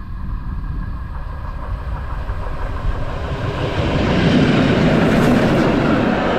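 A train approaching along the track, its rolling noise swelling and growing louder from about halfway through.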